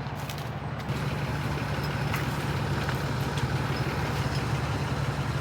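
Truck engine running steadily, getting a little louder about a second in.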